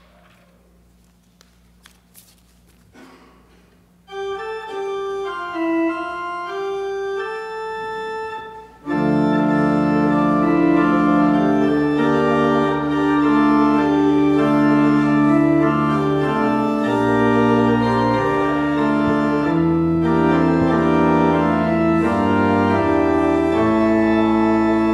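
Church organ playing: after a few faint rustles and clicks, a single melody line of held notes starts about four seconds in, and full sustained chords come in at about nine seconds, moving from chord to chord.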